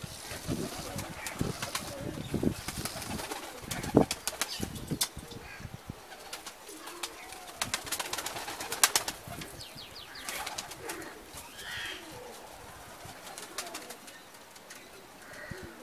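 Domestic pigeons pecking grain off concrete: a run of quick, sharp taps, dense at first and thinning out after about six seconds, with a few soft bird calls in the second half.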